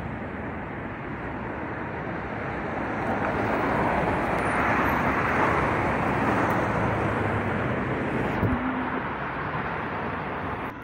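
Road traffic noise, a steady hiss of passing vehicles that swells in the middle as a vehicle goes by, with a short knock near the end.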